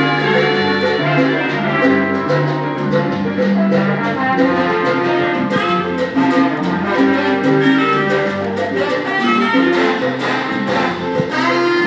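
Salsa music with brass and a steady beat.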